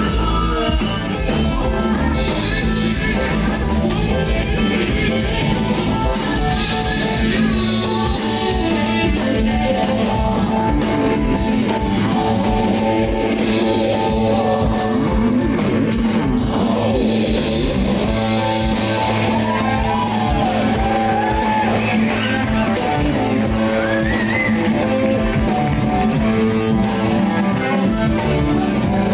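Live rock band playing: guitars over bass and drums at a steady beat, with a winding melodic line, sung or played on guitar, in the second half.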